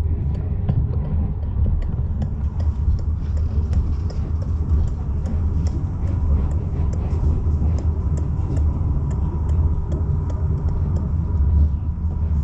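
A steady low rumble with faint scattered clicks and rattles, as of riding in a moving vehicle.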